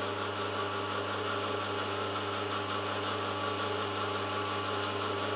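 Milling machine spindle running at a steady speed with no cut being taken: a constant motor and drive hum with a fine, even ticking over it.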